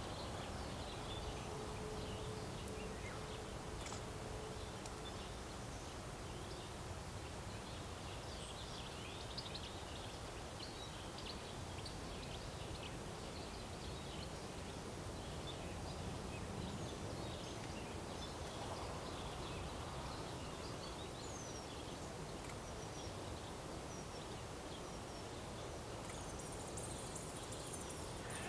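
Steady low background rumble with many faint, short chirps of small birds scattered throughout. A steady low hum holds for the first few seconds, and a high hiss comes in near the end.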